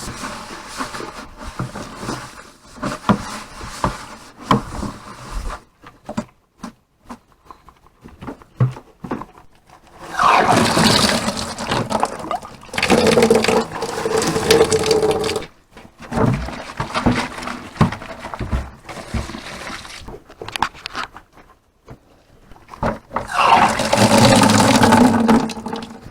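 Water poured or run into a container in several spells of a few seconds each, with knocks and handling noise between them.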